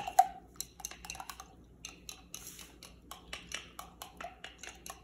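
A paintbrush being rinsed in a water cup to clean yellow paint out of it, its handle tapping and clinking irregularly against the cup.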